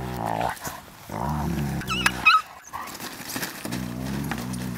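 Dogs growling in rough play: three low growls of about a second each, with a short high squeal about two seconds in.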